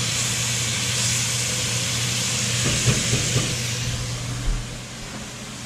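Chopped vegetables sizzling in an enamelled cast-iron Dutch oven on a gas burner, a steady hiss, with a few light knocks from the stirring spoon about three seconds in. The hiss drops off about four and a half seconds in.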